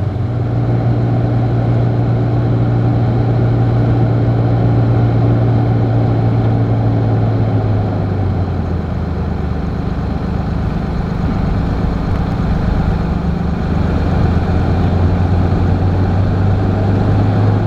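An engine idling steadily, a low hum whose pitch drops slightly about eight seconds in and rises again near the end.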